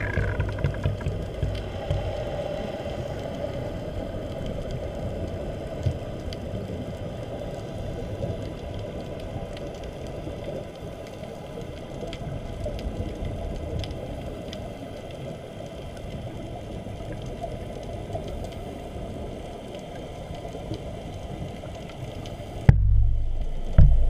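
Underwater ambience picked up by a GoPro in its waterproof housing: a steady, muffled wash of water noise with scattered faint ticks. Near the end come two deep, loud thumps.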